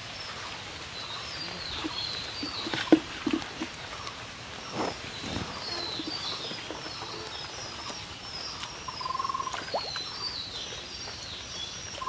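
Birds singing, short falling chirps repeated again and again, over rural outdoor ambience. A sharp knock about three seconds in is the loudest sound, with a few softer clunks around five seconds. A short buzzing trill comes near the end.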